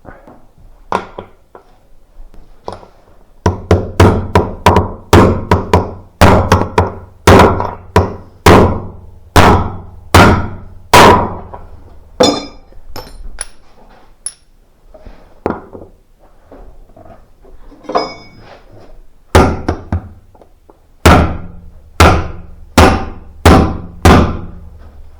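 Hammer blows on metal, about two a second: a long run, a pause of several seconds with lighter knocks, then a shorter run. This is typical of worn drum bearings being knocked out of, or new ones driven into, a washing machine's tub.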